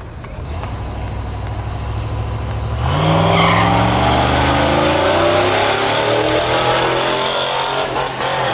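Drag-strip launch: a steady low engine hum at the start line, then about three seconds in a sudden surge as the cars pull away, the engine sound climbing steadily in pitch as they accelerate down the strip.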